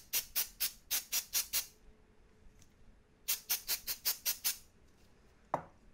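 Aerosol spray can puffing onto a computer mouse's circuit board in short rapid bursts of hiss, about five a second, in two runs. One brief sharp sound with a falling pitch near the end.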